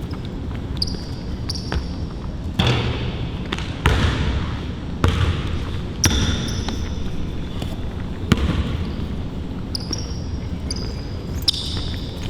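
A basketball bouncing on a court in irregular, hard dribbles, with short high squeaks of sneakers between them.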